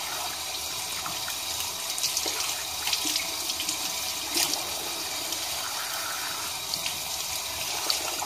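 Kitchen tap running in a steady stream into a sink while raw chicken pieces are rinsed under it, with small splashes as the pieces are turned in the hands.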